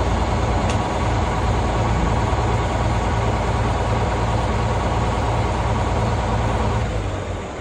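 Detroit Diesel engine powering a circular sawmill, running steadily with a deep, even drone. Its level falls off near the end.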